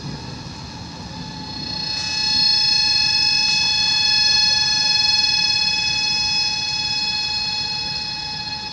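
A loud, steady, high-pitched whine with several pitches held together. It swells in about two seconds in and eases off slightly near the end. A faint click comes about three and a half seconds in.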